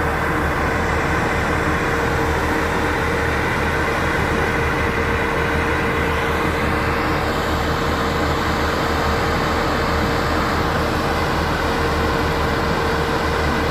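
Heavy diesel construction machinery running steadily, a continuous even engine drone with a low hum and a few held tones.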